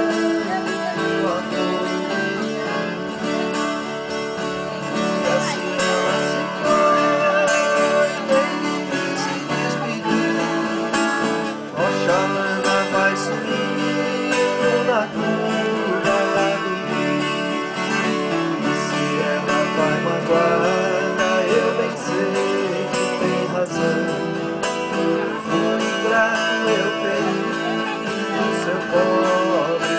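Viola caipira and acoustic guitars playing an instrumental passage of a Brazilian country (caipira) song, a plucked melody over strummed chords.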